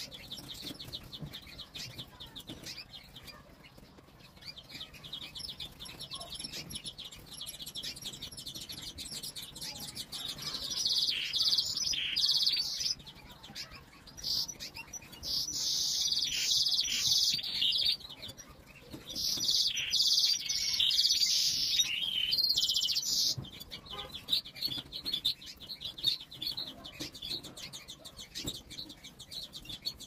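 Caged canaries chirping, a fast, even high twitter throughout, with three louder stretches of song starting about ten, fifteen and nineteen seconds in.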